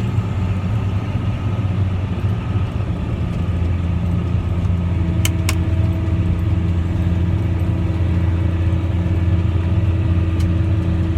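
Diesel engine of a John Deere 9220 tractor pulling a grain cart, running steadily as heard from inside the cab. A steady whine joins about five seconds in, and two quick clicks follow right after.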